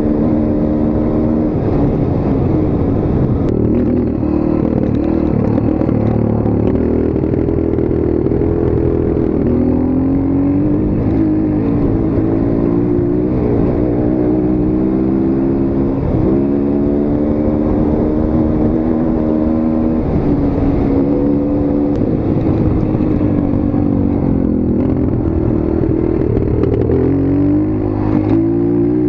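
Motorcycle engine running while being ridden, its pitch climbing and dropping again and again as the throttle is opened and closed.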